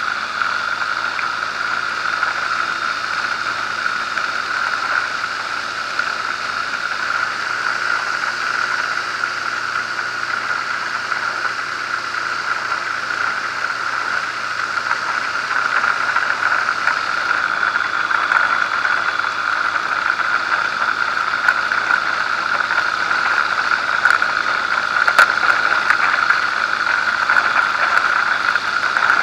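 Zenair 701 ultralight's engine and propeller running steadily at low power while the plane taxis on a dirt airstrip, getting a little louder in the second half, with a few light clicks near the end.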